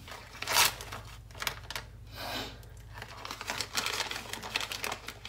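Paper gift wrapping crinkling and tearing as a present is unwrapped by hand. A loud rustle comes about half a second in, and a quick run of small crackles and rips comes near the end.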